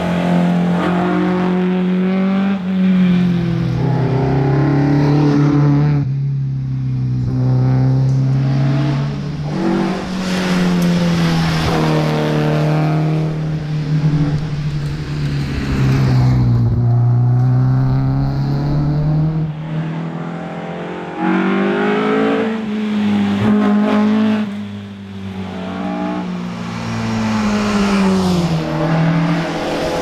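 Ford Escort Mk1 rally car's four-cylinder engine being driven hard, its pitch climbing under acceleration and dropping through gear changes and lifts for corners, again and again.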